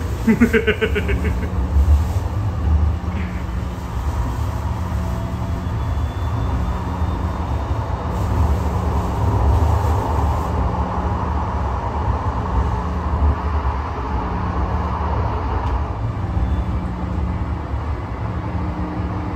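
Running noise inside a Siemens S700 light rail car under way between stops: a steady low rumble with a low hum that comes and goes every few seconds. The rumble grows louder and rougher in the middle, then eases.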